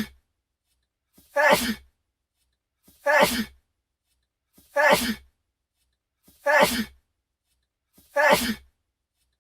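A person's sneeze repeated as the same loop over and over, about one every 1.7 seconds: five sneezes, plus the tail of one at the very start. Each is a short, loud burst with a faint lead-in just before it.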